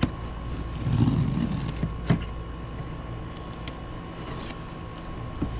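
A cardboard box being cut open along its taped bottom and handled: a brief scraping swell about a second in and a few sharp knocks, over a steady low hum.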